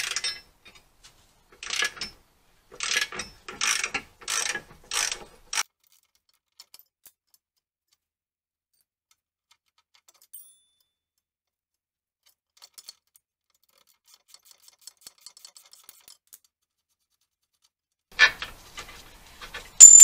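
A ratchet wrench clicking in a run of about six short strokes for the first few seconds, then a few faint ticks. A metal clank comes near the end, and just before the end a sharp ringing metallic clink, the loudest sound here.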